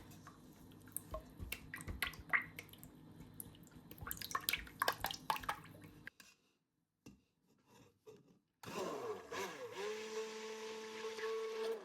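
Light clicks and taps of a spoon in a container as powders are stirred into the soap oils, then, after a short silent gap, an immersion (stick) blender running with a steady hum.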